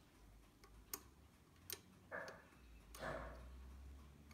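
Faint, sharp clicks of steel tweezers touching the brass parts of a clock's calendar mechanism, a few times at uneven intervals, with two short soft rustles in between.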